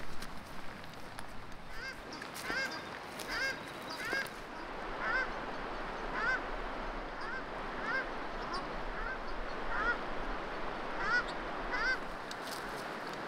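Waterfowl honking: a run of about a dozen short calls, each rising and falling in pitch, roughly one a second, over a steady rushing background noise.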